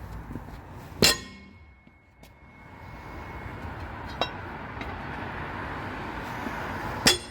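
Sharp metallic clanks of a steel wheel brace on the van's wheel nuts as they are loosened: one loud ringing clank about a second in, a lighter knock midway, and another loud clank near the end. A steady rush of passing traffic swells between them.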